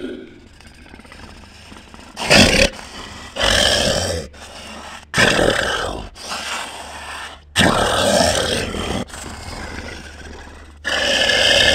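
Sound-effect beast growls and roars, five loud calls a second or two apart, the first the loudest, over a low steady drone.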